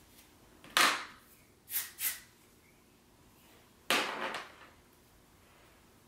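Aerosol hairspray sprayed onto teased hair in four short hissing bursts, the first and last the longest and loudest.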